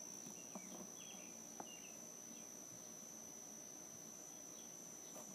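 Very quiet room tone with a steady faint high-pitched whine and a couple of soft ticks.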